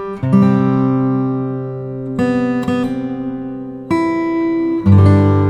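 Background music: acoustic guitar chords strummed every second or two, each left to ring and fade.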